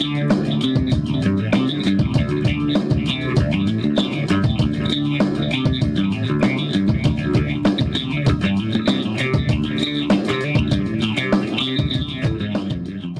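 Background music: rock with bass and guitar over a steady beat, fading out near the end.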